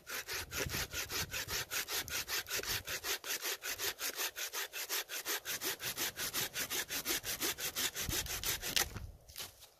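Folding pruning saw cutting through a birch branch: quick, even rasping strokes, about five a second. The sawing stops near the end, with a couple of last strokes.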